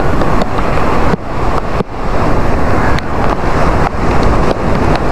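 Waves breaking on rocks and washing up a sandy beach, under heavy wind rumble on the microphone that dips briefly twice in the first two seconds.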